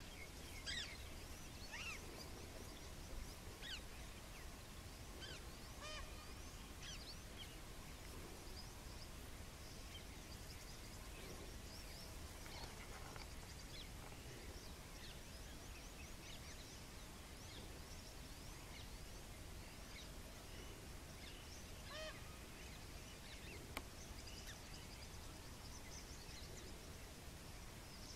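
Faint bird chorus: scattered short chirps and call notes from wild birds, busier in the first few seconds and again near the end, over a low steady rumble.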